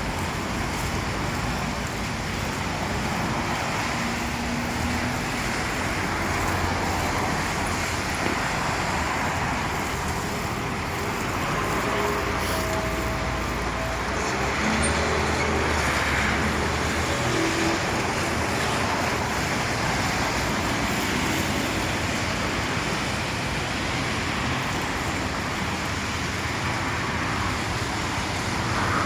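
Steady city road traffic noise: cars and other vehicles passing, an even wash of engine and tyre noise.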